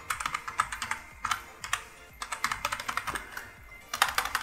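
Typing on a computer keyboard: quick key clicks in several short bursts with brief pauses between.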